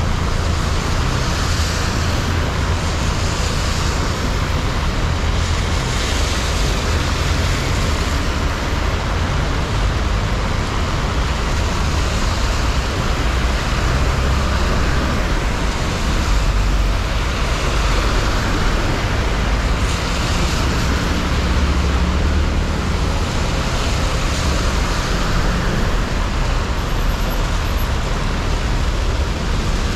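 City street traffic in the rain: a steady hiss of tyres on the wet road and falling rain over a constant low rumble of engines.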